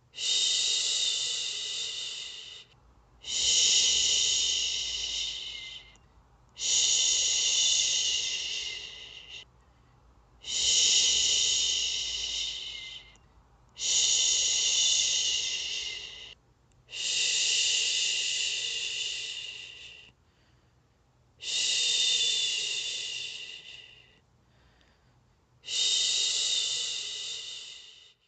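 A woman shushing: eight long 'shhhh' sounds, one every three to four seconds, each starting strong and tapering off, with short pauses for breath between. This is the steady, rhythmic shushing used to soothe a baby to sleep.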